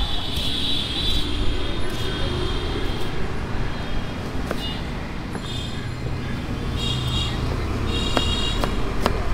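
Steady street traffic rumble, with several short high-pitched tones and a few sharp clicks over it.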